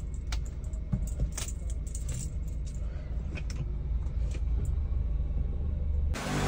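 A bunch of keys on a lanyard swinging and clinking in short, irregular jingles, over a steady low hum.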